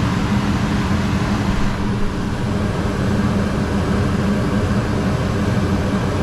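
Gas furnace running steadily after a gas valve replacement: burners firing and the blower pushing air, a loud even rush of air with a low hum.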